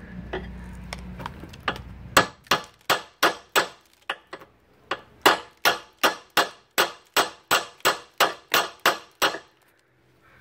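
Claw hammer striking a rusted, seized hitch pin, steel on steel, in a fast run of blows about three a second with a short break about four seconds in. The pin is not budging.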